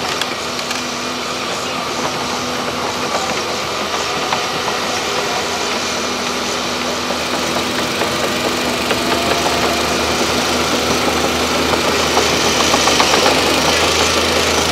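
Diesel engines of Volvo excavators running steadily, growing gradually louder.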